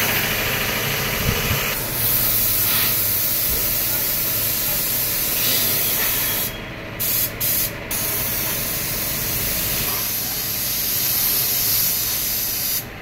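Compressed-air diesel spray gun hissing steadily as it blasts diesel mist onto a backhoe arm. The hiss stops briefly a little past the middle as the trigger is released, then cuts out twice more in quick succession.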